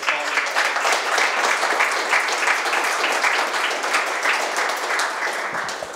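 Audience applauding: a dense patter of many hands clapping that eases off near the end.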